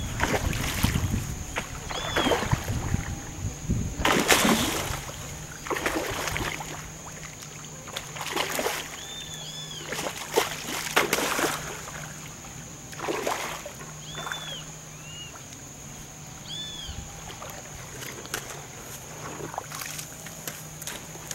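A hooked tambacu thrashing at the water's surface while being fought: irregular bursts of splashing, about a dozen of them, some a second apart and some several seconds apart.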